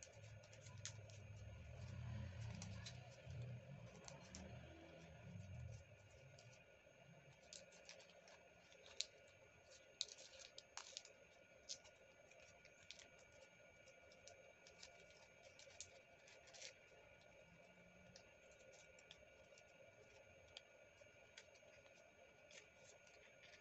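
Faint crackles and clicks of origami paper being folded and pressed into creases by hand, with two sharper clicks about nine and ten seconds in and a low rumble of handling in the first six seconds. A faint steady hum runs underneath.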